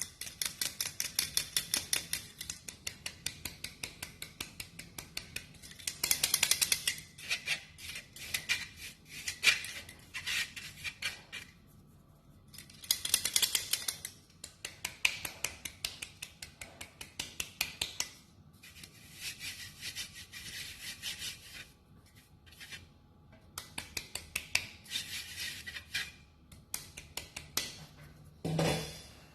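Cake flour and cornstarch being sifted through a hand-held sifter: bursts of rapid, rhythmic scraping clicks with short pauses between them. A single louder knock near the end.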